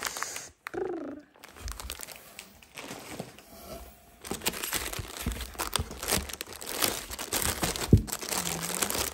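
Plastic wrapping and bubble wrap crinkling and rustling as wrapped snack packs are handled inside a cardboard box, busiest in the second half. There is one sharp thump near the end.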